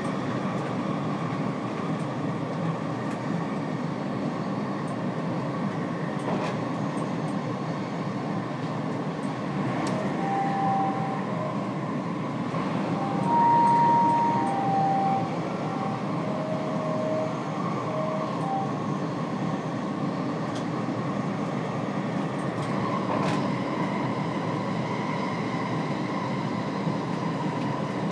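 Stockholm metro C20 train running, heard from aboard: a steady rumble and hum from the car. About ten seconds in comes a string of short high tones at several different pitches, lasting roughly eight seconds.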